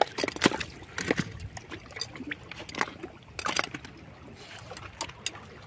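Irregular sharp clicks and knocks of shells and stones being handled while sea snails are picked from among the rocks, over a faint trickle of water.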